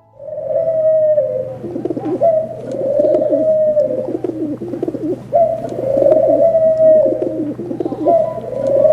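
A bird cooing in four repeated phrases, each a higher held note that falls away into lower warbling, over a faint steady low hum.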